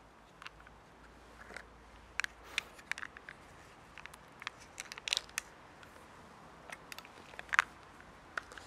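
Foil wrapper of a stock cube crinkling and crackling as it is picked open by hand: scattered short, sharp crackles, the loudest about seven and a half seconds in.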